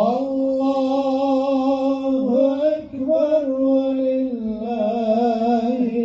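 A single man's voice chanting Islamic religious recitation, holding long wavering notes with melismatic turns and pausing briefly for breath about three seconds in.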